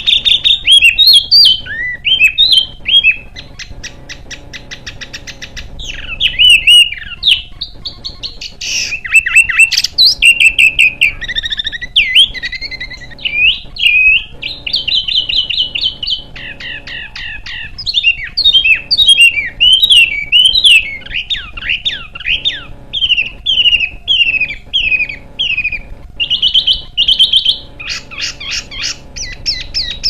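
A small songbird singing a fast, almost unbroken string of sharp chirps, trills and short whistled phrases, the notes sliding quickly up and down.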